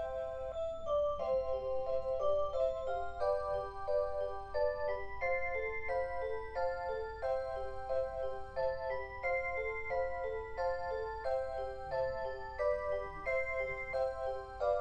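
Electronic alarm-clock melody: a simple looping tune of short, clear pitched notes, several a second.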